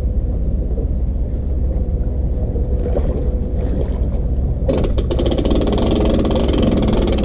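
A steady low rumble, then about two-thirds of the way through a pickup truck's engine starts up suddenly and runs at a steady idle.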